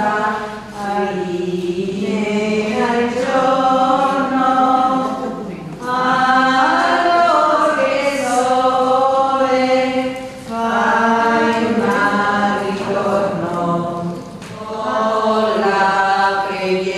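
A congregation of mixed voices singing a hymn together, in long held phrases of a few seconds each with short breaks between.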